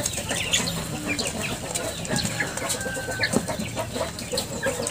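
A flock of native chickens clucking and calling while they feed, many short overlapping calls with a few higher chirps mixed in.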